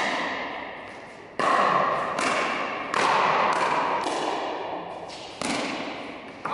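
Pickleball rally: paddles hitting the hard plastic ball, a sharp pop every half second to a second, about seven in all. Each pop trails a long echo from the big hall.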